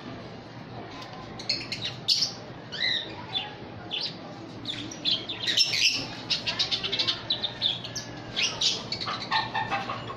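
Small caged parrots, lovebirds among them, chirping and squawking in quick, short, high calls. The calls are sparse at first and become a busy overlapping chatter from about halfway through.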